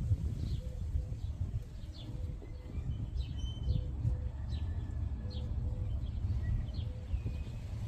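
Birds chirping: short high chirps about once a second, over a steady low rumble.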